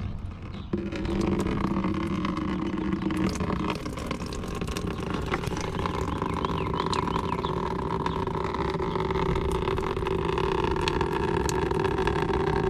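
Coolant pouring from the loosened radiator drain valve of a 2005 Toyota Prius into a drain pan, a steady stream that starts about a second in.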